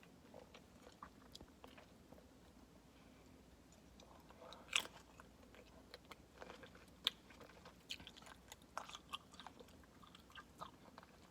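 Someone biting and chewing grapes close to the microphone: soft, quiet mouth clicks, with a sharper bite about five seconds in and another about seven seconds in, then a quicker run of chewing clicks.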